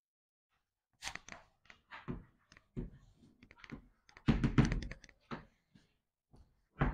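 Chalk on a chalkboard: a run of short taps and quick scraping strokes as lines and labels are drawn, loudest around four and a half seconds in.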